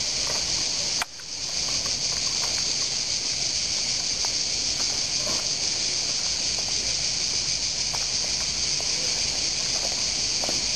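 A dense chorus of singing insects, which the uploader calls crickets, keeps up a steady high-pitched drone. About a second in, the whole sound drops out abruptly and swells back within half a second.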